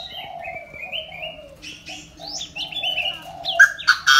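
Several small birds chirping in short quick notes, over a dove cooing low and repeatedly; the chirps get louder and busier near the end.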